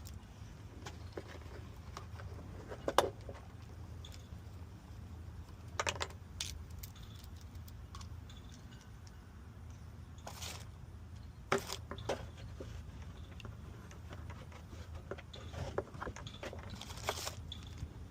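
Small hard parts and tools being handled: scattered clicks, clinks and short rattles, the sharpest about three seconds in, over a low steady hum.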